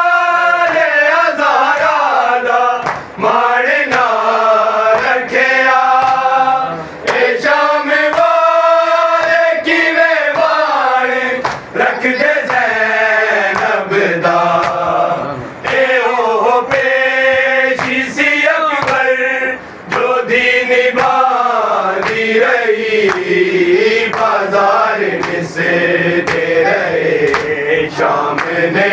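A group of men chanting a noha, a Shia mourning lament, together in long sung phrases, with the slaps of matam chest-beating among the voices.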